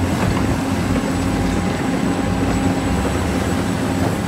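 Large Caterpillar hydraulic crawler excavator's diesel engine running steadily while the machine digs.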